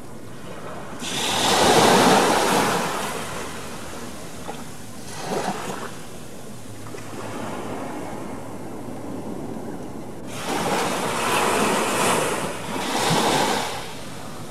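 Surf on a sandy beach, a steady wash of waves that swells loudly twice: about a second in and again from about ten seconds in to near the end.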